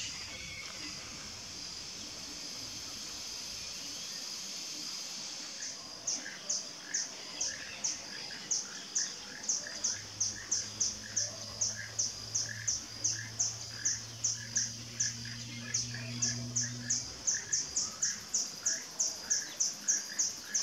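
Keel-billed toucan calling: a steady run of short, dry, frog-like croaks, about three a second, starting about six seconds in. Before that there is a steady high insect hiss.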